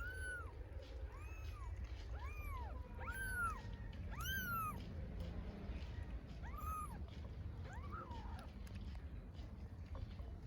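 Young kittens meowing over and over: about seven high, thin calls, each rising then falling in pitch, then stopping after about eight seconds. These are hungry kittens calling for their mother.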